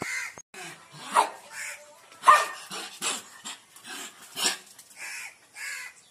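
Dogs giving short barks and yips while they tussle, about two calls a second, the loudest a little after one second in and again at about two seconds.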